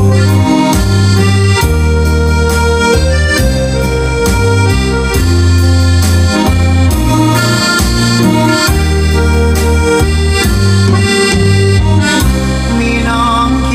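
Instrumental intro of a Thai luk thung song: a melodic lead line over a loud, heavy bass line, played back as a test track through a loudspeaker system.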